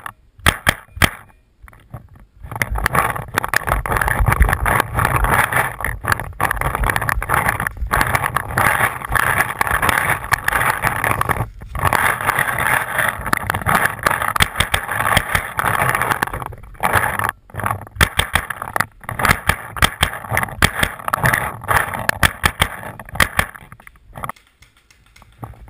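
Footsteps crunching through dry leaf litter while moving fast, with rustling and knocking of carried gear and many scattered sharp clicks. It starts about two seconds in and drops away near the end.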